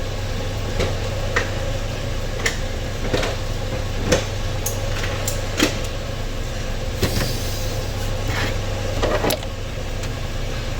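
Scattered light clicks and knocks of hand tools being handled, about a dozen over several seconds, over a steady low hum.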